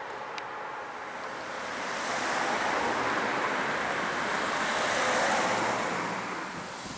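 Street traffic: a passing car's tyre and engine rush swells about two seconds in and fades away near the end.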